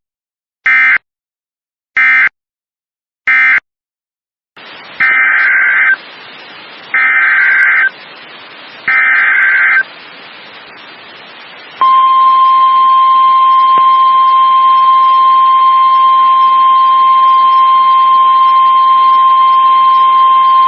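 NOAA Weather Radio SAME alert signalling: three short end-of-message data bursts about a second apart. After a pause come three longer buzzing header data bursts over radio hiss, announcing the next warning. About twelve seconds in, the steady single-pitch 1050 Hz weather-radio warning alarm tone starts and holds.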